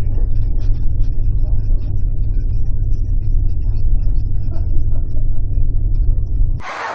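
Steady low rumble of a car on the move, heard from inside the cabin, with faint scattered ticks. Near the end it cuts suddenly to a brighter hiss.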